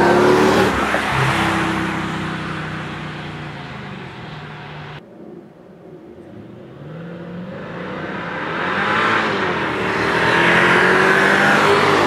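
2005 Mercedes-Benz E55 AMG's supercharged 5.4-litre V8 driving past. It is loud at first and fades as the car pulls away, then after a cut it grows louder again as the car comes back toward the microphone, its engine note bending in pitch as it passes.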